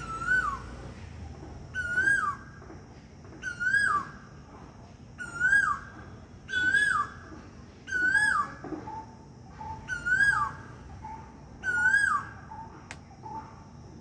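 Asian koel calling a clear whistled two-part note over and over, eight times at about one call every 1.7 seconds. A second bird adds short, quick, lower notes in the latter half, over a faint steady high hiss.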